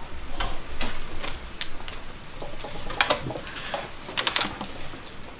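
Irregular knocks and clicks of people settling into seats, with chairs and desks being bumped and moved.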